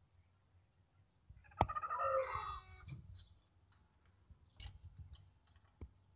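A young chicken gives one short call about one and a half seconds in, right after a sharp knock. Scattered sharp clicks and knocks follow from handling of the wooden-framed wire cage.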